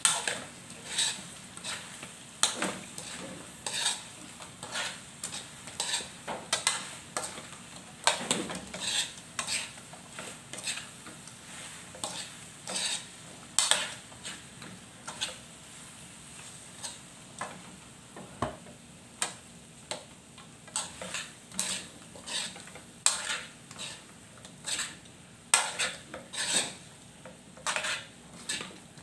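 Fried fish pieces being stirred and tossed through thick sauce in a metal pan: a utensil scraping and clinking against the pan in irregular strokes, about one or two a second.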